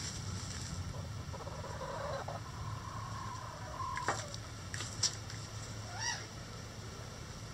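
Chickens in a coop calling: one long drawn-out call held for about three seconds that drops off sharply about four seconds in, then a short rising squawk about six seconds in, with a couple of sharp clicks between.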